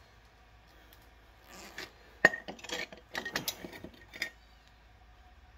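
Short metallic clinks and rattles of a steel caster mounting bracket and screws being handled and set against a wooden leg, starting about a second and a half in, with one sharp click just after two seconds.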